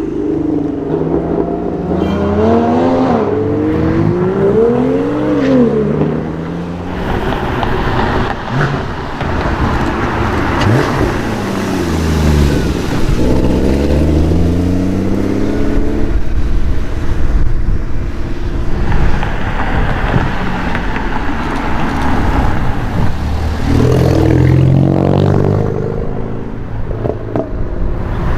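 Sports car engines revving and accelerating as they drive past, in several separate runs: quick rises and falls in engine pitch in the first few seconds, another car passing about halfway through, and one more revving near the end.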